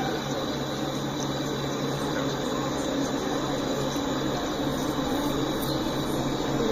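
Steady low hum of diesel locomotives running, under a constant noisy rumble.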